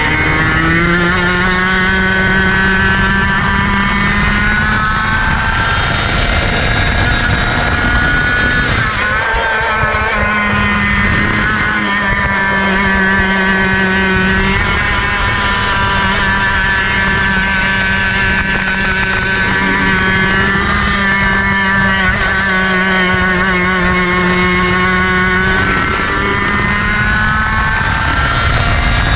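IAME KA100 100cc two-stroke kart engine at racing speed, its pitch climbing on the straights and falling back several times, most sharply about nine seconds in.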